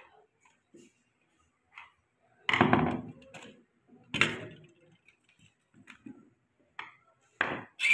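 Small clicks of a screwdriver and plastic parts, then two louder clunks about two and a half and four seconds in as a juicer-mixer's plastic motor base is pulled apart and handled on the bench, with a few more knocks near the end.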